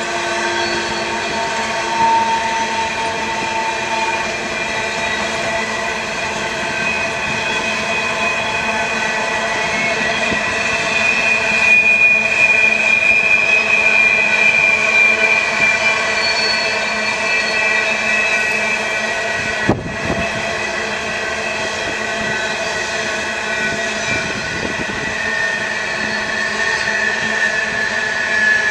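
Empty coal hopper cars rolling past, their wheels squealing against the rail in several sustained high tones that waver slowly in pitch over a steady rolling rumble. There is one sharp bang about twenty seconds in.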